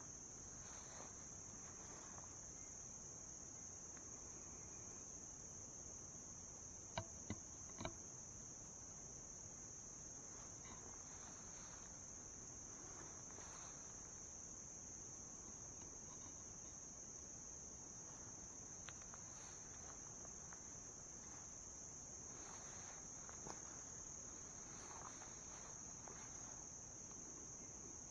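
Steady, high-pitched chorus of insects, an unbroken even drone, with a few faint sharp clicks about seven to eight seconds in.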